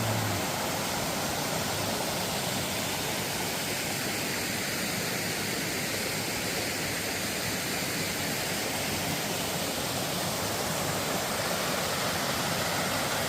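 Mountain stream water rushing steadily over a small waterfall into a pool.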